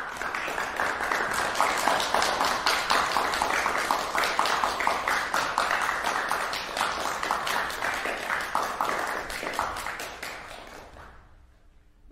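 Audience applauding, a dense mass of clapping that dies away about ten to eleven seconds in.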